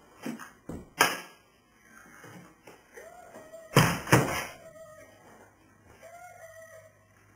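Thumps of a person settling onto a couch and swinging his feet up onto a wooden coffee table: a few knocks in the first second, then two loud thuds close together about four seconds in. A faint held tone comes and goes around and after them.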